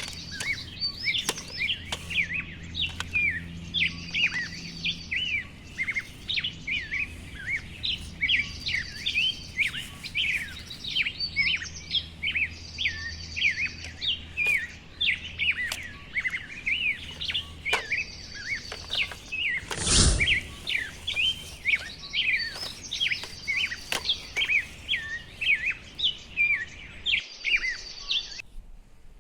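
Birds chirping: a dense run of short, quick chirps, with a brief loud burst of noise about two-thirds of the way through. The chirping cuts off suddenly near the end.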